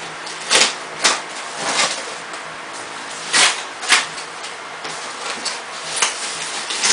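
Packing tape being pulled off and the foam protective wrap rustling as a new iMac is unwrapped: about six short tearing rasps, spread unevenly, over a faint steady hum.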